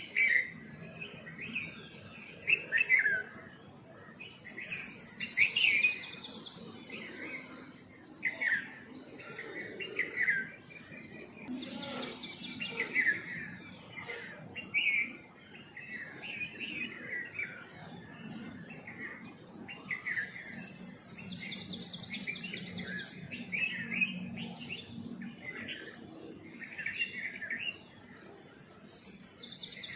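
Songbirds chirping: a steady run of varied short chirps and whistles, with a fast high trill breaking in about four times, roughly every eight seconds.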